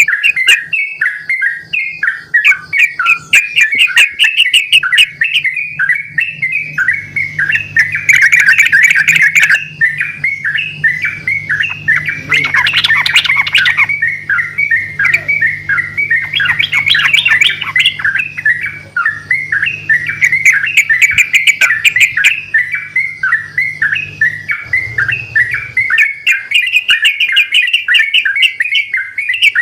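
Several yellow-vented bulbuls singing non-stop in rapid, chattering phrases, answering one another.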